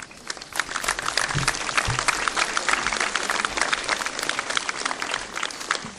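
Audience clapping, swelling within the first second into steady applause.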